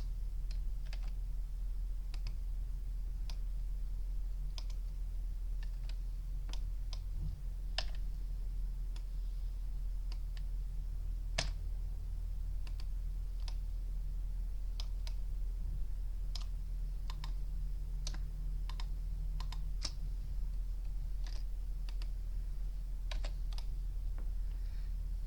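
Computer keyboard and mouse clicks, scattered at irregular intervals about one or two a second, over a steady low hum.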